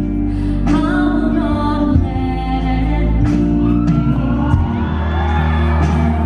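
A female vocalist singing into a handheld microphone over live band accompaniment, amplified through the studio's sound system.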